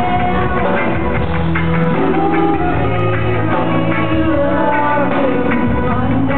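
Live pop-rock band playing: a woman singing the lead over drums, electric guitar, keyboard and bass notes that change every second or so. Muffled, with no treble.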